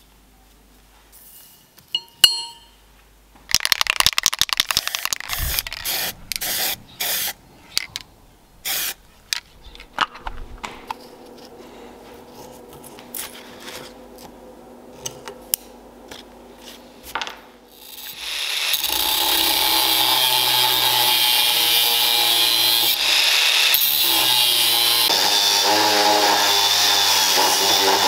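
An angle grinder's cutting disc cuts into a truck leaf-spring steel blank, starting about two-thirds of the way in and running loudly and steadily to the end. Before it come a series of short sharp sounds and taps, then a faint steady hum.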